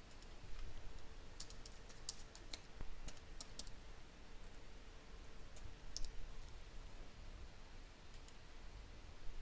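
Computer keyboard typing: a quick run of keystrokes, then a few single clicks a couple of seconds apart, over a faint steady hum.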